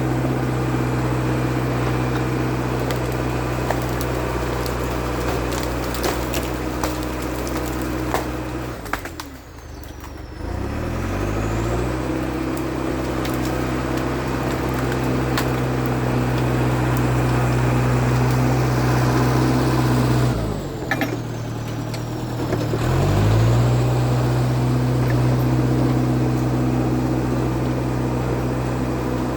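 IH Dresser TD8E crawler dozer's DT239 diesel engine running steadily at working revs. Twice, around 9 seconds in and again around 21 seconds, the engine note drops away and then climbs back up.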